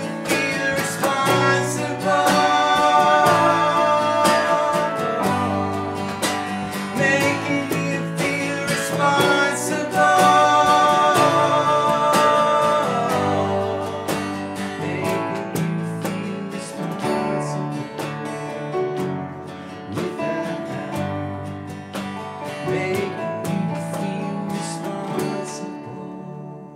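Live acoustic band playing a song with a lead vocal: strummed acoustic guitar, Nord Electro 6 keyboard and cajon. The music fades as the song ends near the close.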